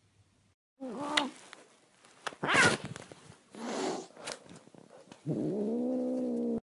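A string of short vocal cries with a harsh, hissing burst in the middle, then a woman's long open-mouthed cry held on one steady pitch for about a second near the end, in a cat's face.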